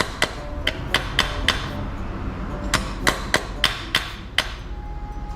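Hammer tapping on the kick-start gear inside an opened Honda Gyro scooter drive case, checking that the gears are properly seated: about a dozen sharp metallic taps in two runs, with a pause of about a second between them.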